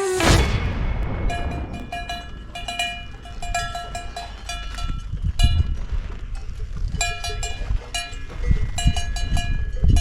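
Cowbells clanking irregularly, several strikes a second in clusters with pauses between, the same few ringing pitches repeating, as from bells on grazing cattle. Under them runs a steady low rumble.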